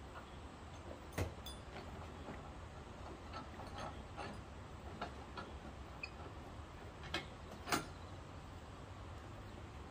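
Scattered light knocks and clicks at an uneven pace, two of them louder, about a second in and near the end, over a faint low hum.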